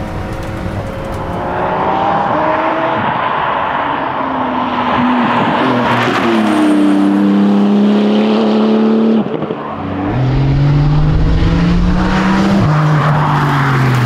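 Porsche 911 GT2 RS twin-turbo flat-six engine at racing speed, its pitch stepping up and down through gear changes as the car slows for a bend. After a short break a little after nine seconds, it rises again under hard acceleration and drops with an upshift near the end.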